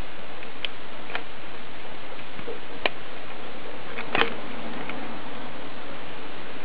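Steady hiss with a few scattered small clicks, the loudest a quick double click about four seconds in.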